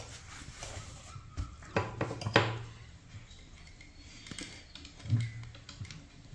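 Scattered clicks and light knocks from handling a sewing machine and fabric as the cloth is turned around the lowered needle, clustered in the first half with a couple more later, two of them with a brief low hum.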